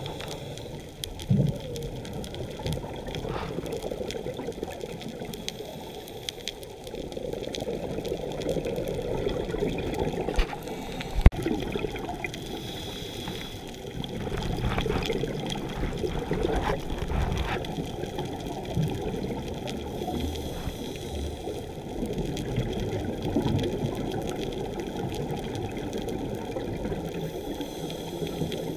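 Muffled underwater noise of scuba exhalation bubbles through a regulator, a rushing, bubbling sound that swells and fades every few seconds. A single sharp click stands out about eleven seconds in.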